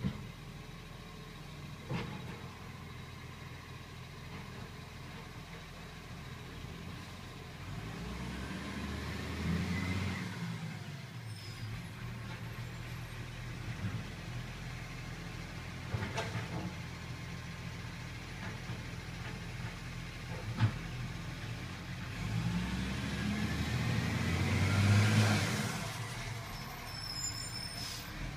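Automated side-loader garbage truck running at the kerb, its engine revving up and easing off twice, about a third of the way in and again near the end, while its hydraulic arm lifts and empties a wheelie bin. Several sharp knocks come from the bin and lifting arm, the sharpest about two-thirds of the way through.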